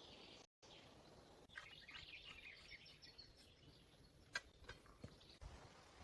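Faint bird chirps over quiet forest ambience, with one sharp click about two-thirds of the way through.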